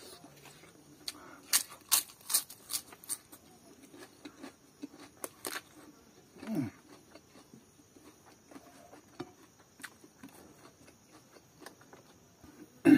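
Close-up eating sounds of a person eating rice and fish curry by hand: a run of sharp lip-smacking and chewing clicks about two seconds in, a few more later, and a short low falling sound near the middle.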